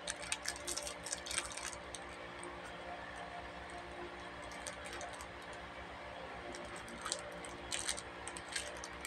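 Thin plastic wrapper crinkling and crackling as it is peeled off a small piece of halwa by hand, in two spells: at the start and again near the end.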